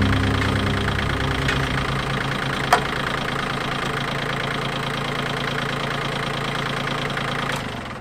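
Compact tractor engine idling steadily, with a single sharp metallic clink about three seconds in. Near the end the engine is shut off and runs down.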